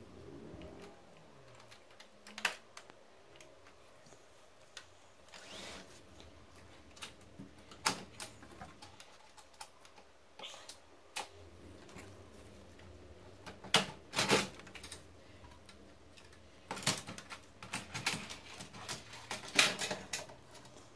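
Plastic and metal parts inside an opened-up HP LaserJet Pro M278–M283 series laser printer being handled by hand: scattered sharp clicks and knocks, coming thick and fast near the end.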